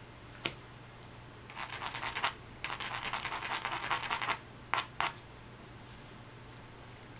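Edge of a flint core being scraped and ground with a stone in rapid strokes for a couple of seconds, between a single sharp click of stone on flint before it and two sharp clicks after it: abrading the edge to prepare a striking platform for knapping.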